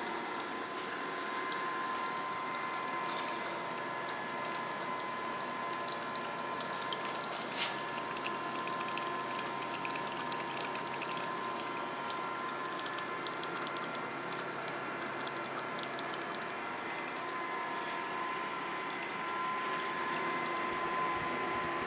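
A water-cooled PC's pump and fans running. It is a steady whine over an even rush of noise, with fine irregular clicking throughout.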